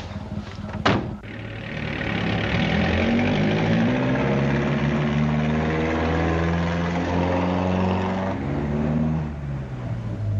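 A sharp knock about a second in, then a motor vehicle's engine that swells up, runs steadily and fades away near the end.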